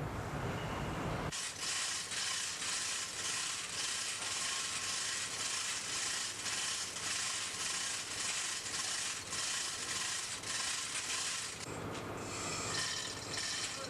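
A ratchet mechanism clicking in an even run of quick strokes, a few a second, while a tool or lifting gear is worked during a main bearing overhaul on a large two-stroke marine diesel. A low rumble cuts off about a second in.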